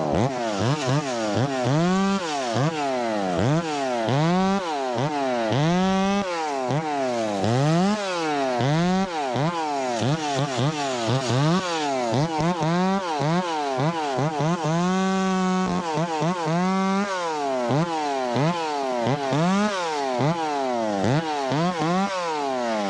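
Ported Echo 25T two-stroke top-handle chainsaw cutting wood, its engine pitch rising and falling over and over as the throttle is worked and the chain takes load. Near the middle it holds one steady high pitch for about a second and a half.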